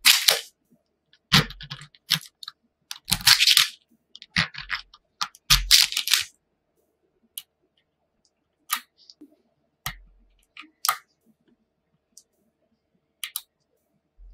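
Small neodymium magnet balls clicking and crackling as they are pressed together and snapped into place, with a plastic card scraping across the layers of balls. There is a dense run of crunchy clicks and short scrapes in the first six seconds, then only scattered single clicks.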